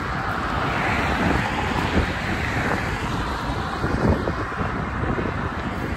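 Wind buffeting the microphone of a camera carried on a moving bicycle, over the steady noise of car traffic on the road alongside, with a few brief low bumps.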